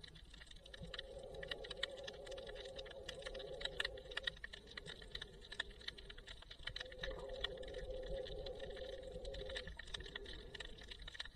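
Underwater ambience heard through an action camera: a dense, irregular crackle of small clicks, with a muffled hum that swells for a few seconds and drops out twice.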